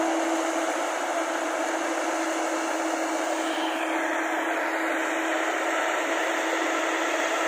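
JCB 205 crawler excavator's diesel engine running steadily: an even hiss with a constant hum.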